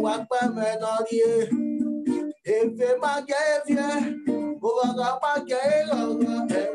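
A man singing with a wavering, melismatic voice while strumming chords on an acoustic guitar, heard over a video call. The voice drops out briefly about two and a half seconds in while the guitar carries on.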